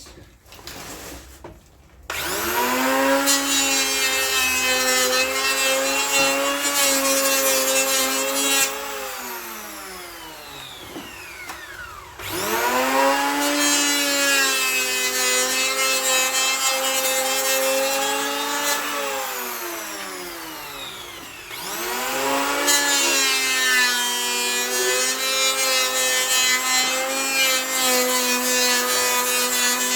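Electric hand planer making three passes over pallet wood. Each time the motor spins up with a rising whine, cuts steadily for about six seconds, then winds down. The passes are levelling the bench top's high and low spots.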